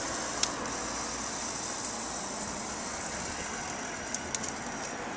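Steady hum of road traffic, with a few light clicks: one about half a second in and a short cluster near the end.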